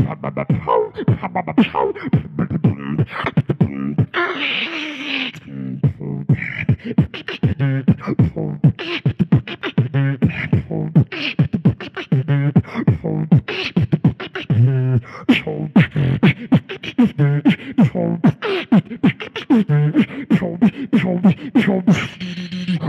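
Solo beatboxing into a handheld microphone: fast, sharp mouth-made kick and snare clicks in a tight rhythm, with held humming bass tones between them and a longer hissing sound about four seconds in.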